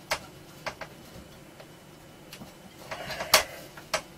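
Sharp clicks and knocks of plastic and metal parts being handled inside an open desktop computer case as a stuck riser card is worked loose. A short scraping rattle about three seconds in ends in the loudest click.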